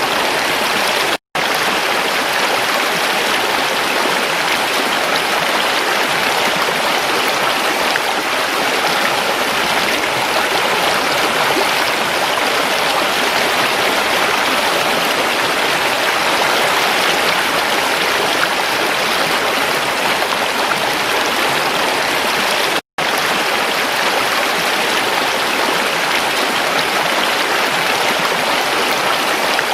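A creek's running water, a steady rushing and splashing hiss. It drops out to silence for a split second twice, once about a second in and once about two-thirds through.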